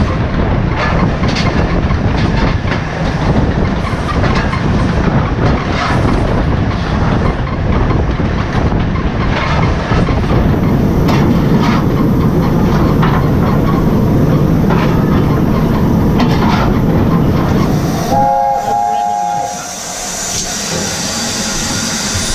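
A4 Pacific steam locomotive running, heard from the footplate: a dense roar of wheels, motion and wind with scattered rail clicks. About 18 seconds in, the loco's three-note chime whistle sounds once for about a second and a half. The running noise then drops and a steady high hiss is left.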